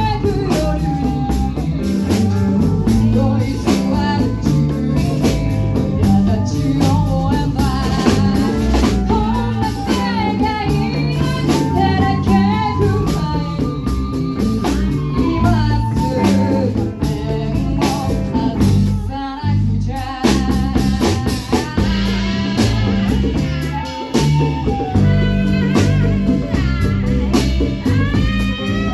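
A live band playing a song: drum kit, bass and guitar, with a bending lead melody line over them and a brief drop in the backing about two-thirds of the way through.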